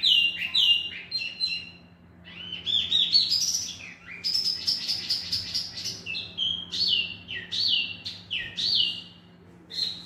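Male wambi mini (tieumi) songbird singing vigorously in its cage. It gives loud whistled notes, each sliding down in pitch, in quick repeated phrases, with short pauses about two seconds in and near the end.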